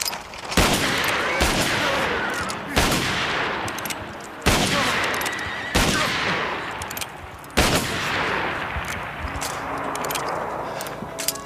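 Six gunshots fired one at a time, one to two seconds apart, each followed by a long echoing tail.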